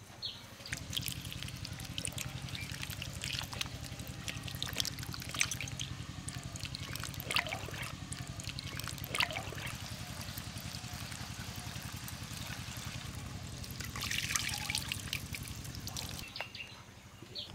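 Water trickling and splashing as hands rub and rinse food in a clay bowl under a running spout, with scattered drips and small splashes, over a low steady hum.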